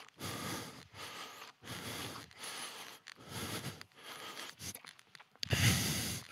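Rustling and rubbing noises mixed with breath-like puffs, coming in uneven bursts about once a second, the loudest near the end.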